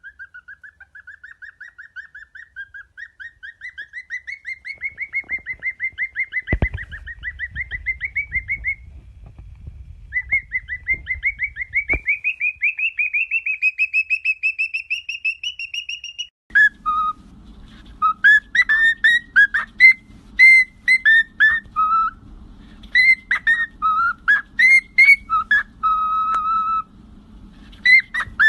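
A pet parrot chirping in a fast run of short whistled notes, about five a second, slowly rising in pitch, with two sharp knocks under it. Then a parrot whistles a tune of short swooping notes and a few held lower notes over a steady low hum.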